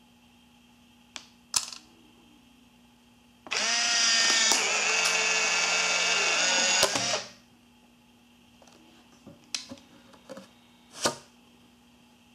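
Fujifilm instax WIDE 300 instant camera: a sharp shutter click about a second and a half in, then the film-eject motor whirring steadily for about three and a half seconds as the print is pushed out. A few light handling knocks and a click follow near the end.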